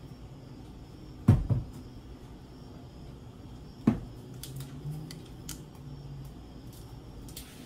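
Dull knocks of seasoning bottles handled and set down on a kitchen counter: a doubled knock about a second in, another near four seconds, then a few faint clicks, over a low steady hum.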